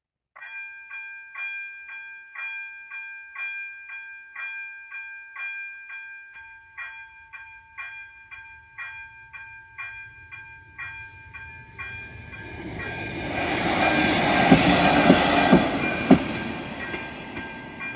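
Level-crossing warning bell ringing, a pitched ding about twice a second. From about six seconds in a train's rumble builds and passes loudest near the end, with a few sharp clicks of its wheels on the rails.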